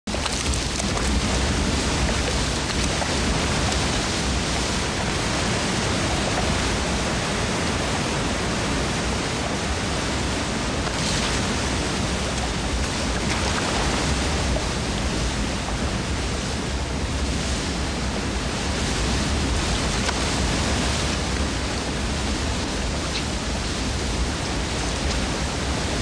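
Waterfall and river rapids rushing in a steady, unbroken roar of white water.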